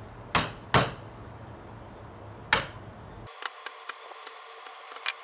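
Hammer blows on the end of a metal punch-like tool set in a hole in a wooden block held in a bench vise: three sharp strikes, two close together and a third about two seconds later. Then the low background hum cuts off suddenly and a run of light clicks and ticks follows.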